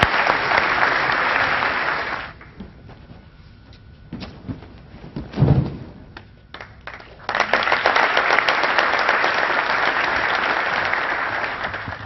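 Audience applause that dies away about two seconds in, then a single heavy thud of a person being thrown onto the padded mats about five and a half seconds in, followed by a second round of applause that fades out near the end.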